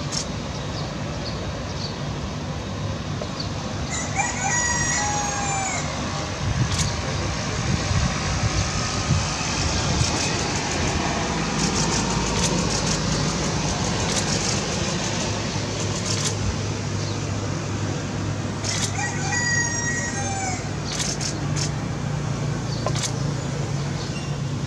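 Steady hum of a Boeing 787-8's jet engines at taxi power, with a rooster crowing twice, about four seconds in and again near the end.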